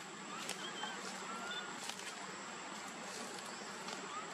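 Outdoor background ambience: a steady hiss with a constant thin high-pitched whine, a few short faint chirps and a couple of soft clicks.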